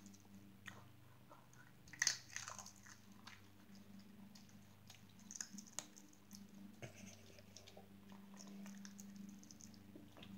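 A small dog chewing and crunching treats, in irregular bites, the loudest about two seconds in. A faint steady low hum lies underneath.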